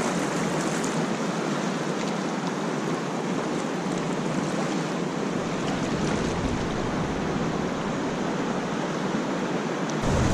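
Gunnison River water rushing: a steady, even rush of moving whitewater with no distinct splashes or strokes.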